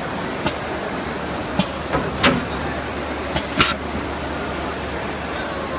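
Hot foil stamping machine running: a steady hum and noise with a few sharp mechanical clicks and clanks at uneven intervals, the loudest two near the middle.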